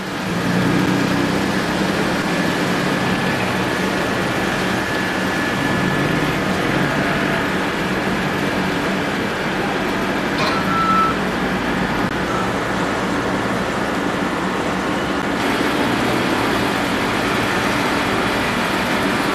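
Steady din of boat engines running on a busy river, with a low engine hum most prominent near the start. A single click and a brief high tone come about ten and a half seconds in.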